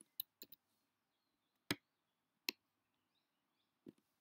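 A handful of sharp computer mouse and keyboard clicks, unevenly spaced, over near silence.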